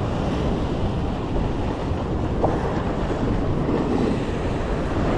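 Wind buffeting the microphone over surf washing and breaking against sea rocks, a steady rough rumble.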